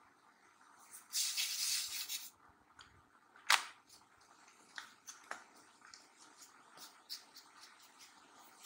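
Faint kitchen handling sounds as a rolled dough round is moved on a plate: a rustle lasting about a second near the start, a sharp click about three and a half seconds in, then scattered light clicks.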